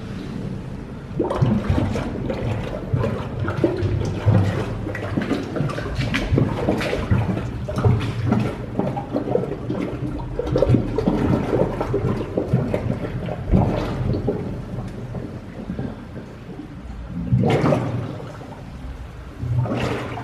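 A scuba diver's exhaled air bubbles breaking the surface of a flooded cave sump: irregular gurgling and bubbling that gets louder about a second in, with two stronger surges near the end, a sign that the diver is coming up.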